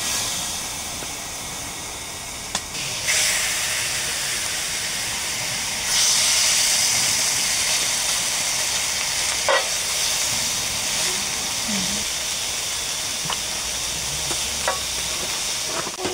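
Raw baby octopus sizzling and hissing on a hot griddle pan. The sizzle grows louder about three seconds in and again about six seconds in, with a few light clicks of a metal slotted spatula against the pan.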